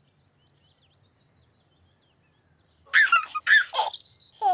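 Faint bird chirps over near silence, then a loud burst of high, squeaky chirping calls about three seconds in, ending in a quick falling whistle.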